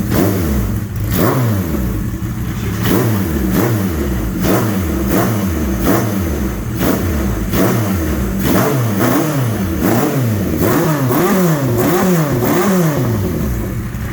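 Suzuki GS1100E's air-cooled inline-four engine being revved, the throttle blipped over and over so the pitch rises and falls about once a second, with bigger, quicker revs in the second half before it drops back to idle near the end.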